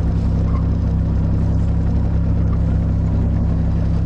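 Kubota KX018-4 mini excavator's diesel engine running steadily as the machine travels on its tracks at its top travel speed, with a constant low hum.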